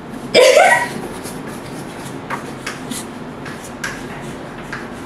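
A short voice sound about half a second in, then faint rustling with a few small clicks.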